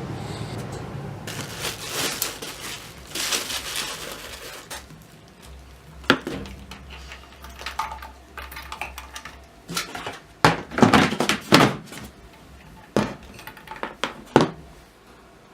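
Irregular knocks, clatter and rustling of objects being handled on a hard surface, with several sharp knocks clustered about ten to fourteen seconds in.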